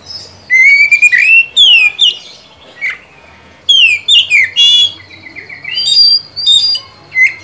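Oriental magpie-robin (kacer) singing loudly: varied phrases of clear whistled notes that slide up and down, mixed with fast rattling trills, in bursts with short pauses between them.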